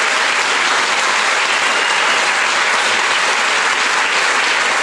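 Audience applauding steadily, a dense, even sound of many hands clapping at the end of a talk.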